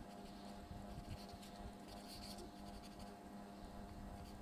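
Faint scratching of a pen writing words on lined notebook paper, over a low steady background hum.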